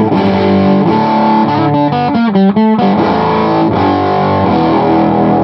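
Electric guitar played through a modified Filmosound amp with its Bassman-style super lead channel turned all the way up: overdriven chords ringing, with a quick run of short notes in the middle. The amp's bass knob is turned down, which gives the tone a weird fuzzy quality.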